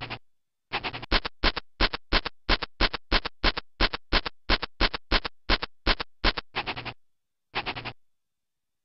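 Bad Dog screensaver's digging sound effect: a rapid run of short, scratchy scrapes, about three a second, which stops briefly and then returns for a short burst near the end.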